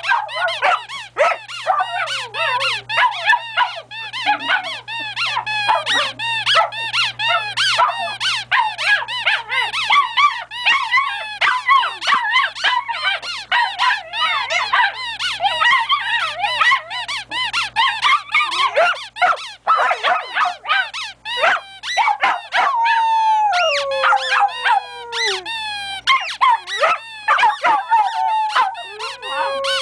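Rubber squeaky toy squeaked rapidly and over and over, several short squeaks a second. From a little past twenty seconds in, dogs (a Bichon Frise and a yellow Labrador) howl along in long sliding howls that fall in pitch, mixed with a few more squeaks.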